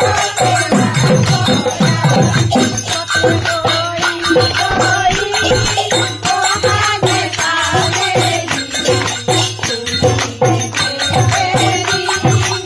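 Live Bihu folk music: women singing together to steady hand clapping and the beat of a dhol drum, with a dense run of percussive strokes throughout.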